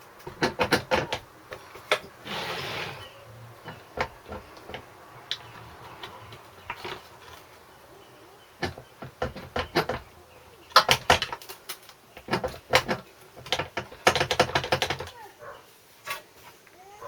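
Hand tools and small metal engine parts clicking and clattering while a small engine's carburettor and tank are being unbolted, with several quick runs of rapid clicks and scattered single knocks.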